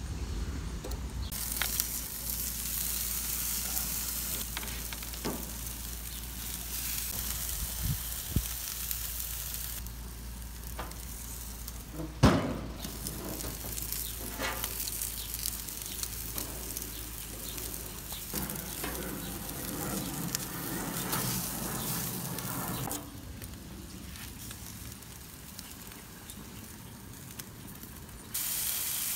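Longganisa pork sausages sizzling on hot grill grates, a steady hiss that jumps in level abruptly several times. Metal tongs click against the sausages and grate, with one loud knock about twelve seconds in.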